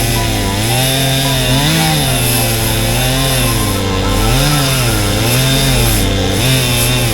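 Chainsaw running on an Alaskan chainsaw mill, ripping along a log under load, its engine pitch dipping and rising again every second or so as the cut bogs it and it recovers.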